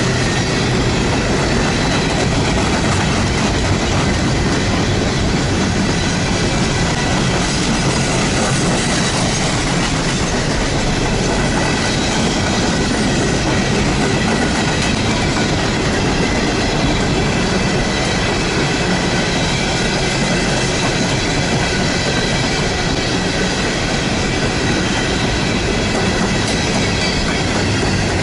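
Freight train coal hopper cars rolling past close by: a steady, loud rumble and rattle of steel wheels on rail, with steady high-pitched tones ringing over it.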